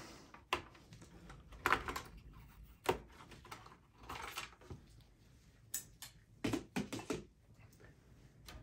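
About half a dozen scattered clicks and light knocks as the memory-slot retention latches are pressed open and the RAM modules are pulled out of their slots on a desktop PC motherboard.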